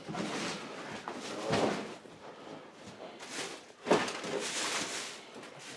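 Things being taken out of a closet and moved about: scattered rustling and a few knocks, the sharpest about four seconds in.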